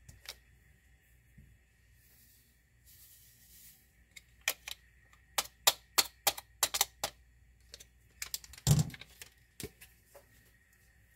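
Light clicks, taps and rustles of hand baking prep with a stainless mesh flour sieve, a bowl and a stick packet of dry yeast: a soft hiss about three seconds in, a quick run of sharp clicks in the middle, and one duller, louder knock near the end.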